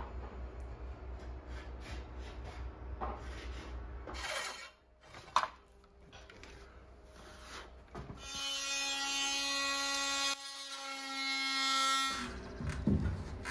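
Handling of wooden siding boards, with knocks and a sharp click, then an electric power tool running steadily for about four seconds near the end and stopping abruptly.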